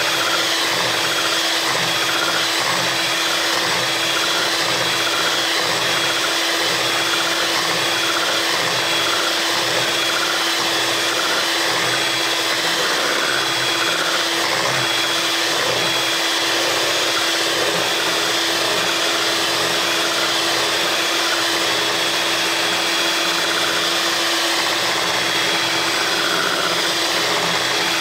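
Sunbeam Mixmaster electric hand mixer running steadily at one speed with a constant motor hum and whine, its beaters whipping thick chocolate frosting in a glass bowl.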